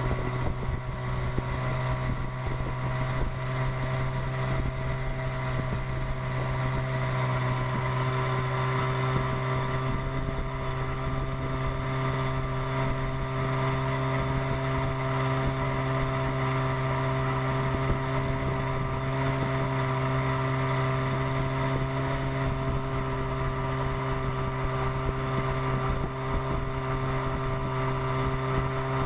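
1957 Johnson Sea Horse 18 hp two-cylinder two-stroke outboard motor running steadily under way, its pitch holding constant as it pushes the small runabout along.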